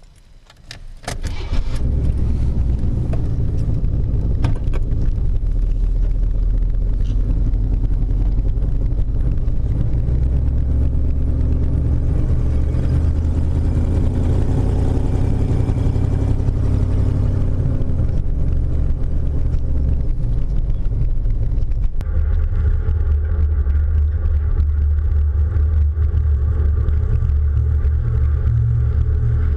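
Keys jingle and the 1982 GMC 3500 crew cab truck's engine is started about a second in, then runs steadily and gets louder for a few seconds in the middle. Near the end the sound changes abruptly to the truck driving, heard from a camera mounted outside the cab.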